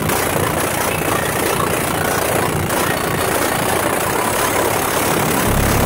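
Loud, bass-heavy music from the truck's car stereo, driven by a new Kenwood BT958HD head unit, heard inside the cab. The bass gets deeper and much stronger near the end.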